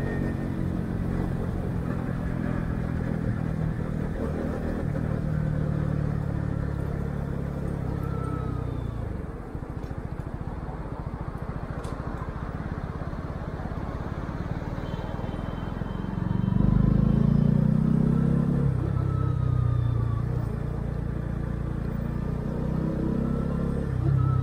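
Honda CB125R's single-cylinder four-stroke engine through its stock exhaust, picked up by an action camera's built-in mic on the rider's chest. It runs steadily under way and drops off as the bike slows about nine seconds in. It pulls away louder about sixteen seconds in, and again near the end.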